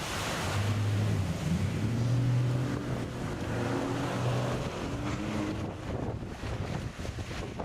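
Rescue boat's engine running under heavy wind noise on the microphone and the wash of water. The engine note comes up about half a second in, shifts up and down in pitch, and fades out near the end.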